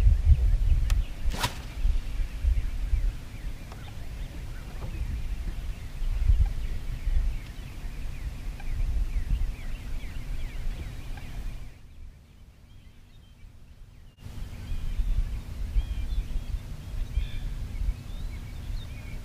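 Birds calling and chirping in a dawn chorus over a low rumble of wind on the microphone. A sharp click comes about a second and a half in, and the sound drops out for about two seconds some two-thirds of the way through.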